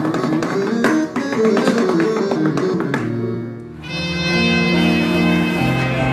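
Music: a quick run of sharply struck, plucked-sounding melodic notes, then, after a short dip about three and a half seconds in, sustained low notes that change pitch in steps.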